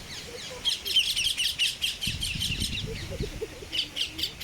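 Birds chirping in a fast run of short, high notes, several a second, starting about a second in and going on to the end.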